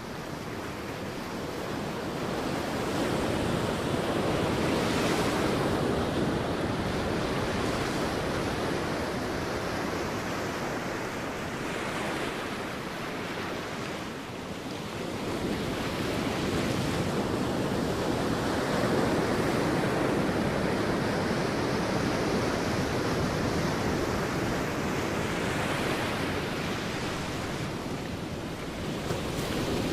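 Sea waves washing onto a beach: a steady rush of surf that swells and eases in slow surges several seconds long.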